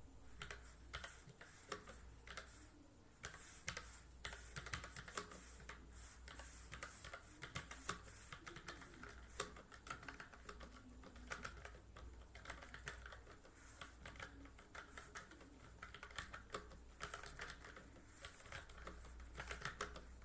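Typing on an Armaggeddon SMK-9R low-profile mechanical keyboard with Outemu switches: a quiet, continuous run of irregular key clicks.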